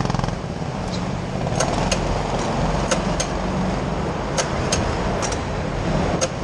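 Go-kart engines idling, with a louder engine note easing off just after the start. A series of sharp clicks, mostly in pairs, sounds over the engine note.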